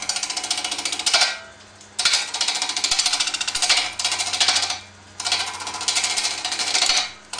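Wood lathe running with a steady hum while a gouge cuts an epoxy resin bowl blank in three passes, each a fast rattling cut lasting one to three seconds, with short pauses between as the tool is lifted off.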